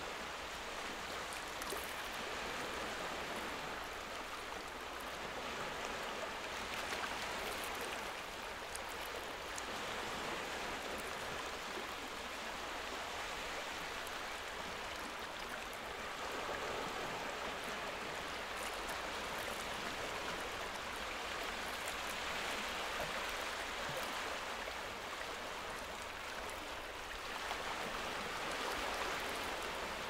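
Steady rain falling, a continuous even hiss with scattered faint drop ticks.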